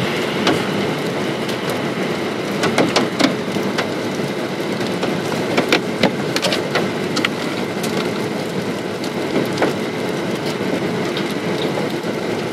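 Steady rain falling, with many separate drops tapping sharply close by.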